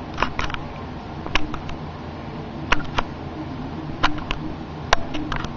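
Irregular sharp clicks and light taps, often two close together, over a steady low background hum.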